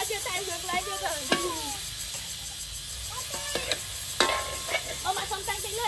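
Food sizzling in a hot steel wok while a long metal ladle stirs it, scraping and clinking against the pan.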